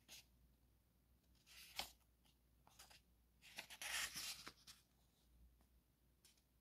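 Paper pages of a paperback book being turned by hand: faint rustles, a short one about two seconds in and a longer one around four seconds in.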